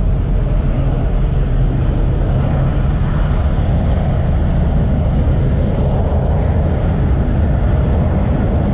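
Steady low rumble of a car rolling slowly, its engine and tyres heard from inside the cabin.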